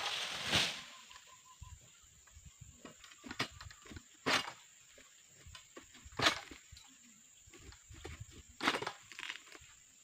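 Dry palm fronds and leaf litter crunching and rustling in short, sharp, scattered bursts while an oil palm harvester moves about and raises an egrek harvesting pole into the crown, with a faint steady high tone underneath.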